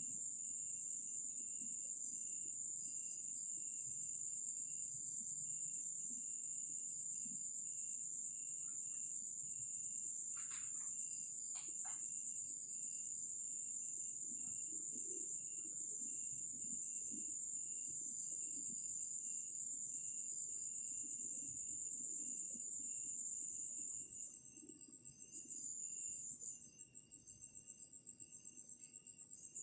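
Night insects: a steady, unbroken high-pitched trill with a cricket chirping in a regular pulse beneath it. Two brief faint clicks come near the middle.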